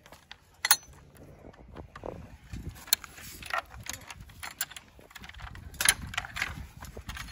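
A key being turned and worked in the metal lock of an old wooden door, with the lock and latch rattling and keys jangling: several sharp metallic clicks, the loudest about six seconds in.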